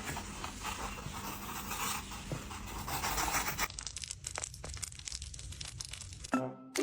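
Rustling and crinkling, like paper or bedding being worked, for the first three seconds or so. It gives way to a run of quick small clicks and ticks. Music comes in right at the end.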